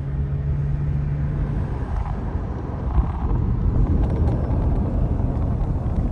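Low engine rumble, with a steady hum that stops about two seconds in.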